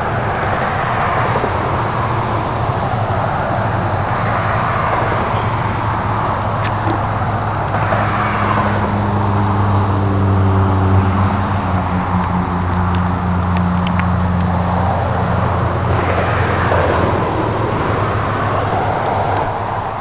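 Crickets chirping in a steady pulsed rhythm over a constant low engine hum and noise; from about eight seconds in, a clearer engine tone comes up, holds, and fades again by about sixteen seconds.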